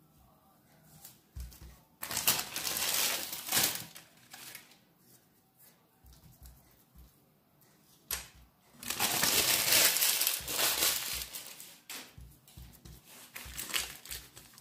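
A sheet of baking paper crinkling as it is peeled back off rolled-out cocoa dough and pushed aside, in two longer rustles, one about two seconds in and one around the middle, with smaller crackles between and after.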